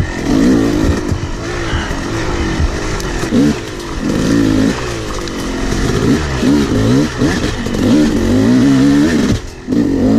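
Yamaha YZ250 two-stroke dirt bike engine revving up and down over and over as the throttle is worked on a rough trail. The engine noise dips briefly near the end.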